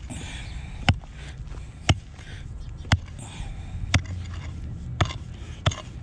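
A digging tool chopping into the soil about once a second, with dirt scraping between the strokes, as a metal detector target is dug out.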